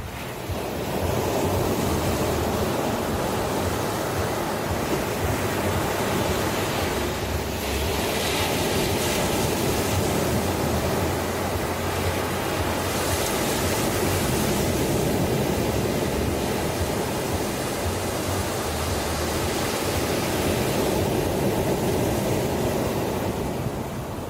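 Ocean surf: a steady rush of waves washing in, swelling up in the first second and easing off near the end.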